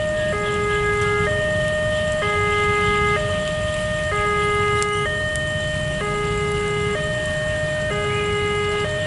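Railway level-crossing alarm sounding its two-tone electronic warning, alternating a higher and a lower note about once a second, the signal that the crossing is closed and a train is coming. A low rumble of idling motorcycle and car engines runs underneath.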